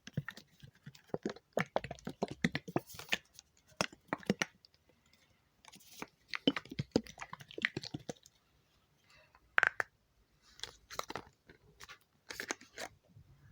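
Close-miked ASMR water sounds: liquid in a container handled right at the microphone, giving wet, crackling clicks in bursts with short pauses between them.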